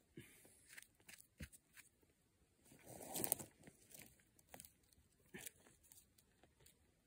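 Hands digging through dry conifer needles and forest duff: scattered soft crackles and small snaps, with a louder rustling scrape about three seconds in.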